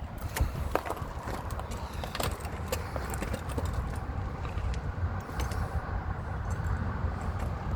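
Scattered light metallic clicks and knocks of hand tools working on bolts and screws, over a steady low rumble.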